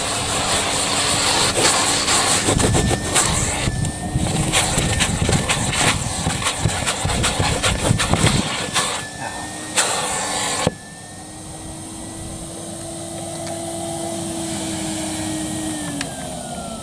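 Numatic Hetty vacuum cleaner running, its nozzle working over a car rug with scraping and rattling over a steady motor whine. About two-thirds of the way in, the noise drops sharply to a quieter, steady motor hum, and near the end the motor's pitch starts to fall.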